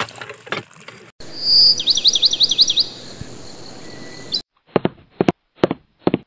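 Water trickling for about a second, then a bird chirps a quick run of about eight high notes that rise and fall. Near the end come several short, separate sharp bursts.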